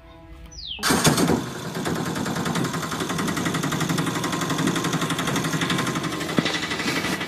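A steady, fast mechanical rattle like a small engine running, for a toy auto-rickshaw being run along the ground. It starts abruptly about a second in with a brief louder burst.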